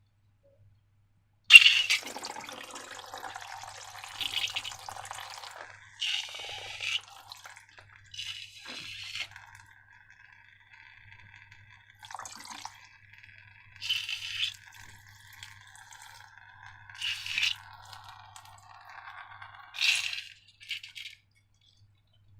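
Wet slime liquid dripping and squelching in irregular bursts. A sudden loud one comes about a second and a half in, then several more every two or three seconds with a faint thin hiss between them, stopping near the end.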